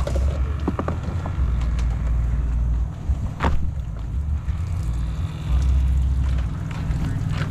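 Boat underway, its outboard motor running under a heavy, uneven low rumble of wind buffeting the microphone. There is one sharp knock about three and a half seconds in.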